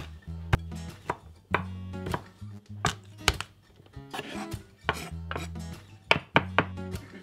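Chef's knife chopping garlic on a wooden chopping board: irregular sharp knocks of the blade on the wood. The loudest knock comes right at the start, as a clove is pressed under the flat of the blade.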